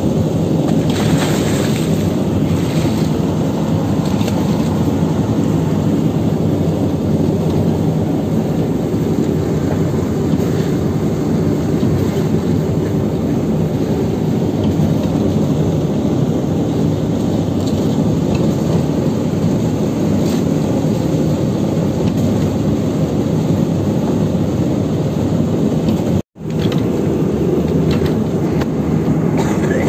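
Fishing boat's engine running with a steady drone, cutting out for an instant near the end.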